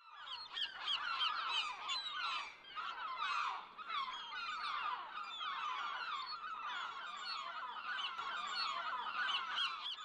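Sound effect of a large flock of birds calling at once: many short, overlapping calls in a continuous chorus.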